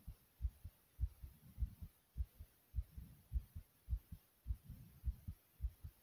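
A human heart beating fast and pounding hard, at about 105 beats a minute. Each beat is a deep double thump, a strong first beat followed by a weaker second one.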